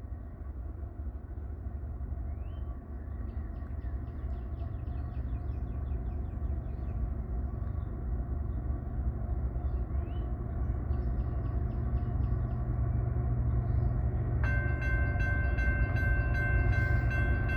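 CSX freight train with GE diesel locomotives passing close by: a steady low rumble that slowly grows louder, with light rhythmic ticking over it. About fourteen seconds in, a loud steady chord of several high tones sets in on top.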